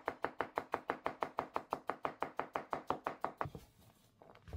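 Ken Kageura nakiri (a thin, double-bevel Japanese vegetable knife) chopping celery on a wooden cutting board, at a fast, even rhythm of about eight strokes a second. The chopping stops a little after three seconds in. Then come a couple of soft knocks as the cut slices are scooped up on the blade.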